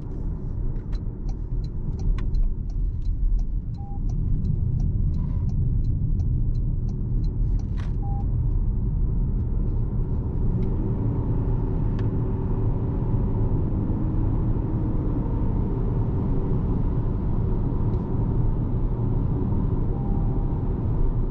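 Steady low rumble of road, tyre and drivetrain noise from a Toyota RAV4 2.5-litre hybrid on the move. For the first seven seconds or so, a quick, even ticking runs over it at about three ticks a second.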